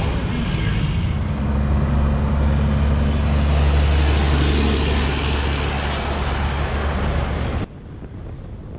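Semi-truck's diesel engine running with a steady low drone, a rushing hiss swelling over it in the middle. Near the end the sound cuts off sharply to quieter wind noise.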